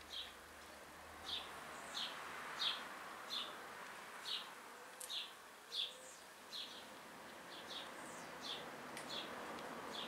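Hummingbird calling: a short, high chirp repeated about every two-thirds of a second, some of the notes doubled.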